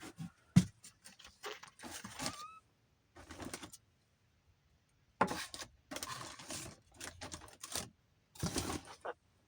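Objects being handled and moved about in a rummaging search: rustling and clattering in several short bursts with quiet gaps between, and a sharp knock about half a second in.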